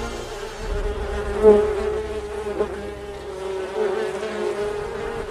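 Honeybees buzzing: a steady, even drone of many wings, with a brief louder swell about a second and a half in as one bee comes close.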